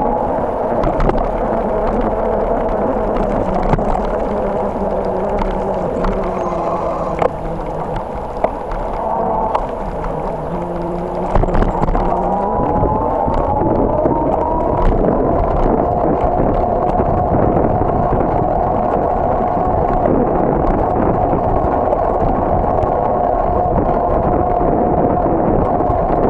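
Steady rushing wind and tyre noise from a bicycle riding over pavement, heard through a bike-mounted camera, with a faint wavering whine and a few knocks from bumps about eleven seconds in.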